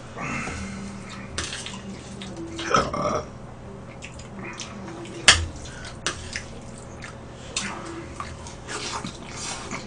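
Eating sounds: chewing and slurping of noodles, with scattered clicks of a metal spoon and chopsticks against dishes. A sharp click about five seconds in is the loudest.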